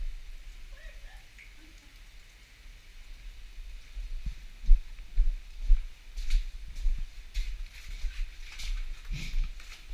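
Footsteps on an icy, gravelly rock path: dull low thuds about twice a second, picked up through a head-mounted camera. Sharper crunching clicks join in the second half.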